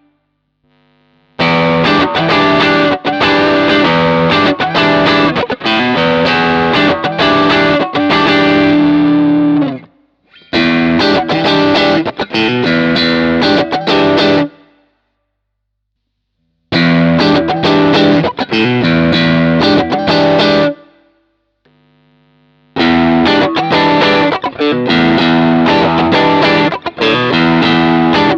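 Electric guitar played through an overdrive pedal into a cabinet simulator, giving a driven, distorted tone. It comes in four phrases of several seconds each, with brief pauses where the notes die away between them.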